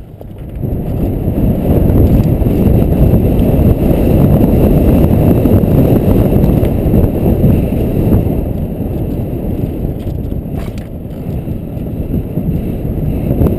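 Loud, steady wind rumble on a helmet-mounted camera's microphone, mixed with the tyre and trail rumble of a mountain bike rolling fast down a dirt singletrack. It eases a little about ten seconds in.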